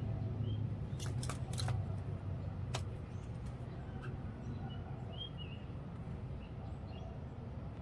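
Outdoor ambience with faint, scattered small-bird chirps, a steady low rumble and a few sharp clicks in the first three seconds.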